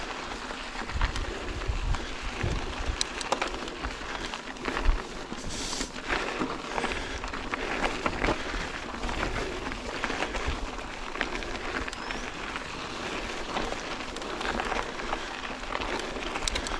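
Mountain bike rolling along a dirt trail: tyres crackling over gravel and dirt, with many small clicks and rattles from the bike and a louder knock about five seconds in. Wind rumbles on the microphone in the first couple of seconds.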